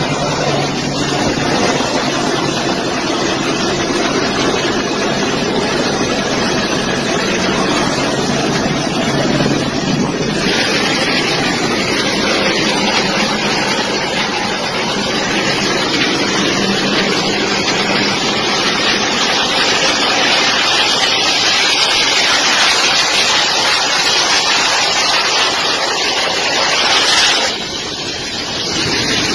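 Loud steady rushing noise of aircraft engines and wind, a hiss with no distinct tone. It grows brighter and hissier about ten seconds in and drops briefly near the end.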